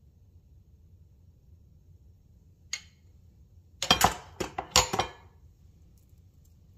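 A metal spoon clinking against a ceramic bowl as it is put down, a quick run of sharp clinks and knocks lasting about a second, after a single faint click a little earlier.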